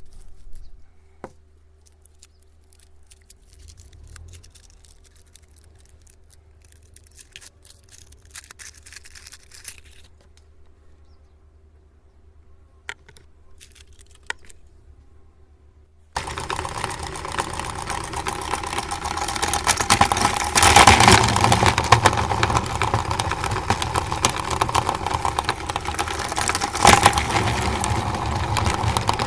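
Faint scattered clicks and rustles, then about halfway a meat grinder's motor starts abruptly and runs steadily and loudly, grinding chocolate, with a few louder surges.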